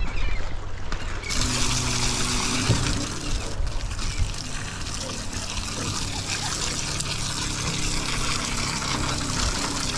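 Washdown hose spraying water over a pile of freshly caught shrimp on the culling tray to rinse them, a steady hiss starting about a second in.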